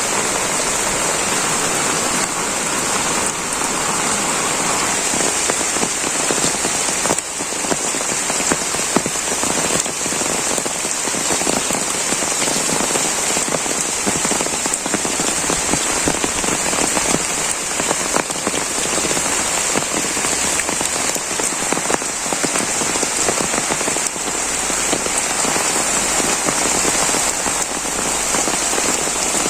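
Heavy rain falling steadily, a dense patter of drops striking surfaces without a break.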